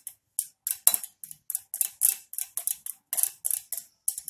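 Wire whisk beating thick fresh yogurt smooth in a glass bowl, in quick rhythmic strokes of about three a second that scrape and click against the glass.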